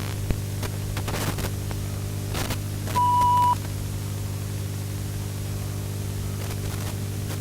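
Steady electrical hum and static hiss on a tape recording of a TV broadcast, with a few crackles. About three seconds in comes a single steady high beep lasting about half a second.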